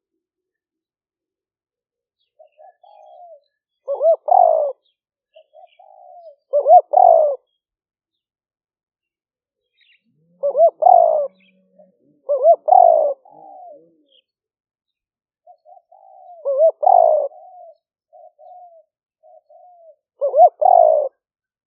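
Male spotted dove cooing in a repeated decoy-call song: six loud coo phrases every two to four seconds, each led in by a few softer notes, with silence between them.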